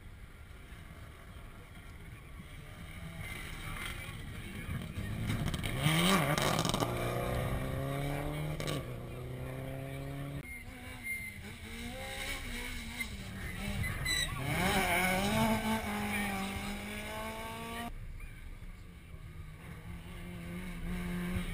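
Rally car engines running hard as the cars approach, the pitch climbing steadily and dropping back with each gear change. The sound cuts off suddenly twice.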